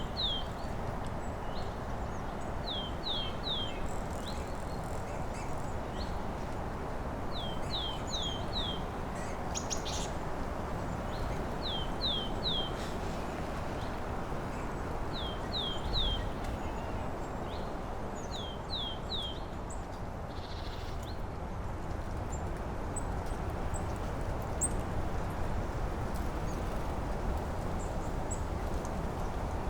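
A small songbird singing a short phrase of three quick, high, downward-slurred whistled notes, repeated about every three to four seconds through the first two-thirds. It sings over a steady rushing background noise, and fainter high chirps from other birds come in near the end.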